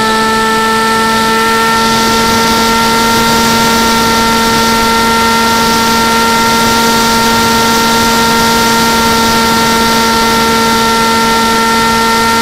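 Motor and propeller of an RC FPV plane in flight, heard from a camera mounted on the plane: a steady whine of several even tones over a rush of wind noise. The pitch lifts slightly and the hiss grows about two seconds in.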